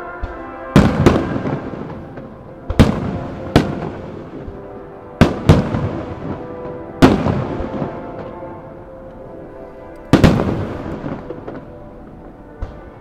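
Aerial firework shells bursting in a starmine, about ten sharp booms, several in close pairs, each dying away in a rumbling echo.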